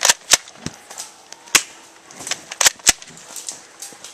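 Airsoft guns firing single shots: about five sharp cracks at irregular spacing, two close together near the start and two more near three seconds in, with a few fainter snaps between.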